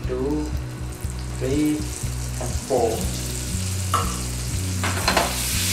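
Whole boiled eggs frying in hot oil seasoned with turmeric and chilli powder, sizzling. The sizzle grows louder toward the end.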